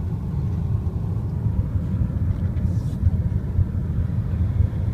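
Steady low rumble of a car driving up a winding mountain road, heard from inside the cabin: tyre and engine noise.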